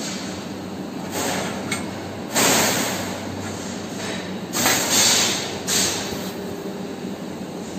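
Steady hum of a fiber laser cutting machine, broken by several short hissing bursts of about half a second each, with a couple of light metal clinks as laser-cut stainless steel pieces are lifted from the sheet.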